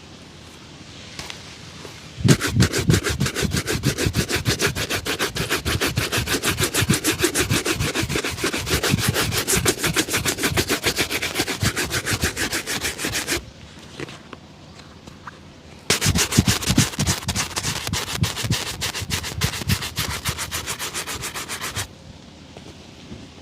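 A shoe being buffed with fast, rhythmic back-and-forth rubbing strokes. The strokes come in two bouts: a long one of about eleven seconds, then after a short pause a second of about six seconds.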